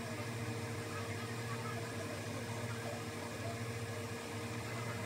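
Steady low machine hum with a faint even hiss.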